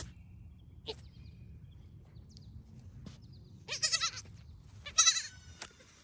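Newborn goat kid gives a brief sharp sneeze about a second in, then bleats twice: two loud, quavering cries about a second apart near the end.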